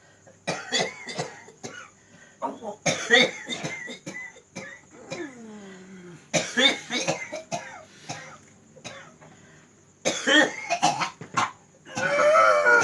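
A man coughing hard in about five separate fits. Between fits there is a drawn-out groan that slides down in pitch, and near the end a strained, voiced cough. This is the chronic cough he has had for over two years.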